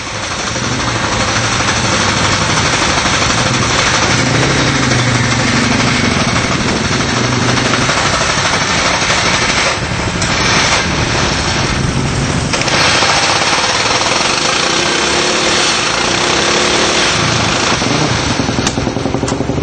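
Single-cylinder Supermono race bike engine running loud and fast-pulsing on a warm-up, its pitch rising and falling with the throttle.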